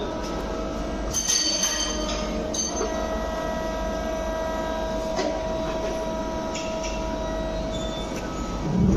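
Steady whine and hum of a CNC turning machine (lathe) running, with a few metallic clinks in the first few seconds.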